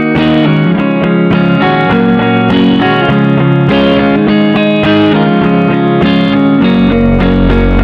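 Background music led by plucked guitar, starting abruptly just before and playing steadily, with a stronger bass line coming in near the end.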